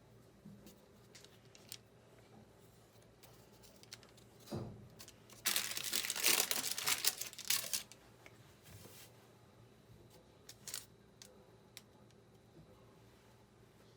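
Packaging being handled and torn open: scattered small rustles and clicks, a short thump, then a loud stretch of crinkling and tearing lasting about two seconds, followed by softer rustling.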